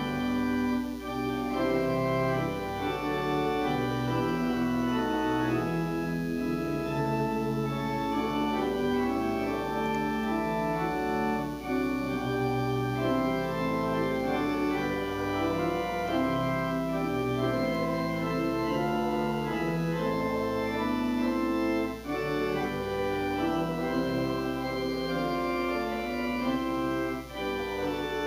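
Organ playing a hymn tune in sustained chords, the notes changing about every second.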